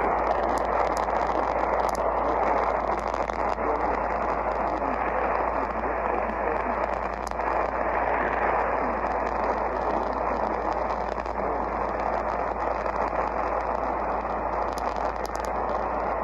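Radio receiver static: a steady hiss with a low hum underneath and a few faint crackles.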